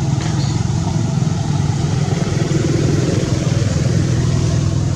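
A vehicle engine idling steadily with a low, even rumble.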